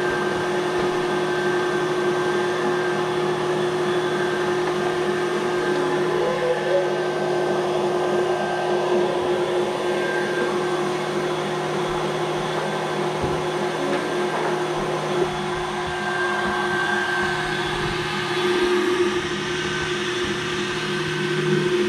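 Electric stand mixer running steadily at medium-high speed, about 7, whipping a marshmallow filling of gelatin and hot sugar syrup.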